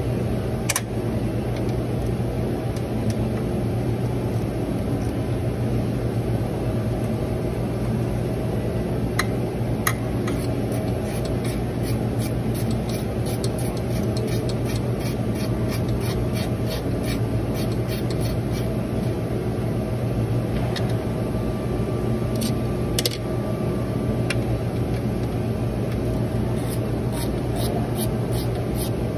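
Hand ratchet clicking in quick runs of strokes as it turns an engine bolt, over a steady low hum. The runs start about a third of the way in and come again near the end.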